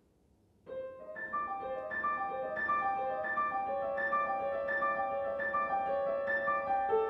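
Grand piano playing a gently repeating broken-chord figure, starting just under a second in after near silence.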